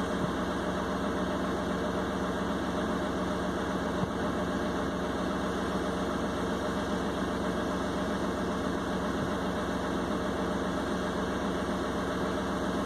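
Heavy diesel engine of earthmoving equipment running steadily at a constant pitch, with no revving.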